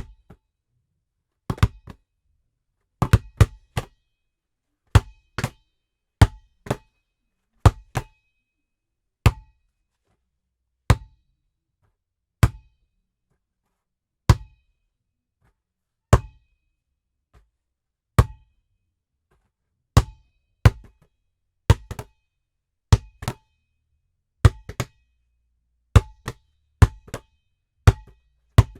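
A basketball bouncing, recorded dry with no room echo. There are single thumps and quick runs of two or three bounces, spaced about a second or two apart, each with a faint short ring.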